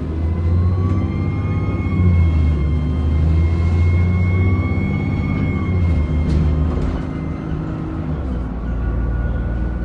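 Alexander Dennis Enviro400 Dennis Trident bus engine running under way, with a high turbocharger whine. The whine rises about a second in, holds, and fades out around two-thirds of the way through, while the deep engine note shifts pitch a few times.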